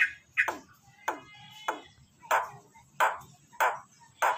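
Jalak Nias starling calling: a series of short, sharp, loud notes, each sweeping quickly downward in pitch, repeated steadily about every half-second or so.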